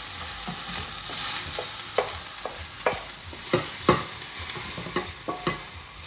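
Chicken pieces frying in a non-stick pan with a steady sizzle while a wooden spatula stirs them, then about six sharp knocks of the spatula against the pan as the cooked chicken is tipped out into a bowl.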